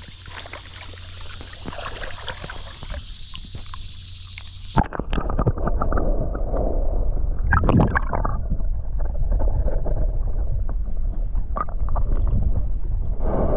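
River water splashing and sloshing as a fish is released by hand. About five seconds in, the sound turns suddenly muffled and rumbling as the microphone goes under the water, with a brief louder gurgling rush a few seconds later.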